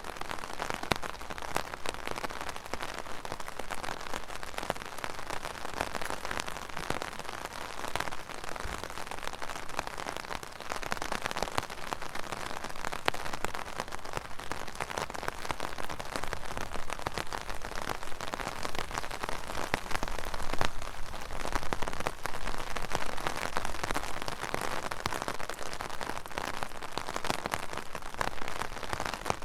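Steady rain falling on a hard surface, a dense even patter of drops.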